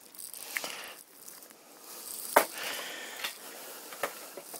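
Cardboard toy-kit box being handled and turned over: rustling and scraping with a few sharp taps, the loudest about two and a half seconds in.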